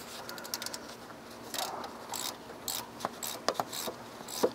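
A ratchet wrench clicking as it loosens the banjo bolt on the turbocharger oil line. It starts with a quick run of ticks, then gives separate short rasping strokes.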